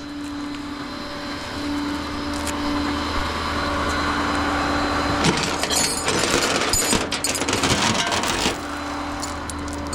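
A vehicle engine idling steadily. A louder rushing noise builds over several seconds and drops away about 8.5 seconds in, with clicks and rattles in its last couple of seconds.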